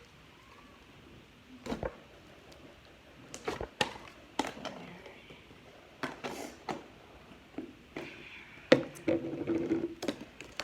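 Slime being squeezed and stretched by hand, giving scattered sharp pops and clicks at irregular intervals, more of them in the second half.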